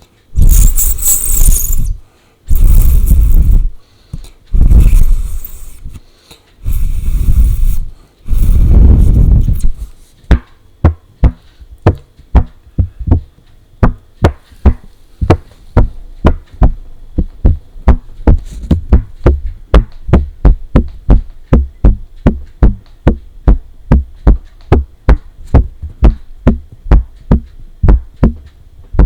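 Paper being handled and tapped close to a microphone: about five long, loud bursts in the first ten seconds, then quick, even tapping with a deep thud in each tap, about two taps a second.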